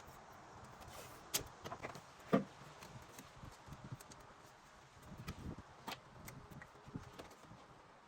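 Hand work in a car's engine bay: scattered light clicks and knocks as vacuum hoses and small parts are handled. The loudest knock comes about two seconds in, with another cluster about halfway through.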